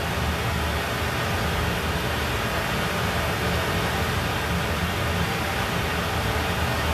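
Dolby Atmos test audio played through a Zebronics Juke Bar 9700 soundbar: a steady rushing noise over a low rumble, like a vehicle or aircraft passing.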